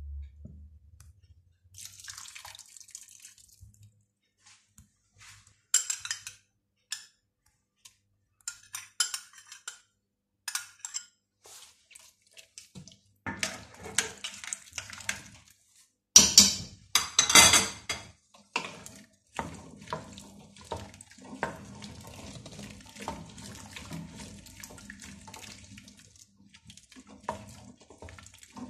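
Cooked chickpeas being mixed in a stainless steel pot, by hand and then with a wooden spoon: wet squishing and sloshing with scattered clinks and scrapes against the pot, the loudest clatter a little past the middle.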